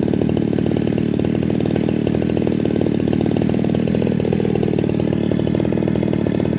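Two-stroke chainsaw engine running steadily at speed.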